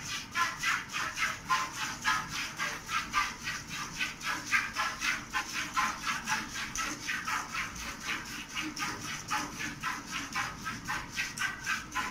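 Cow being milked by hand into a steel pail: jets of milk hiss into the pail in a steady rhythm of about three squirts a second as the hands alternate on the teats.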